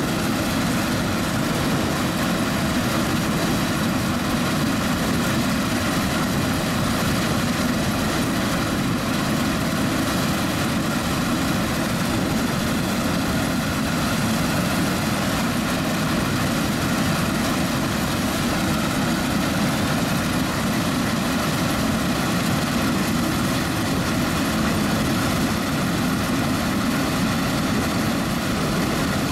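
Claas Lexion 460 combine harvester running steadily while cutting oilseed rape: a constant, even drone of the engine and threshing machinery.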